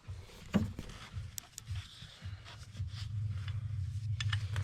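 A sharp knock about half a second in and a few light clicks of metal parts being handled, then a steady low hum from about two seconds in.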